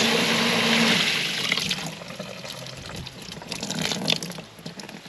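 Water spraying from a water-breaker hose nozzle into the shallow water of a plastic bathing tub, fed by a submersible pump that hums steadily. About a second in, the pump's hum stops and the spray dies away to drips and trickles.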